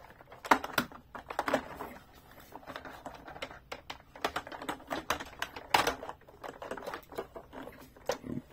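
Hands handling a large plastic toy truck: irregular clicks, taps and knocks of hollow plastic parts and fingertips pressing on the plastic, with sharper knocks about half a second in and about two-thirds of the way through.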